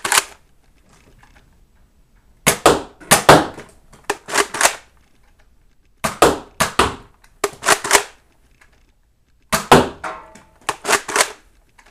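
Nerf Elite Rough Cut 2x4 pump-action dart blaster being primed and fired: quick sharp clacks and pops of the pump grip and the spring plungers releasing, in three clusters about two seconds apart.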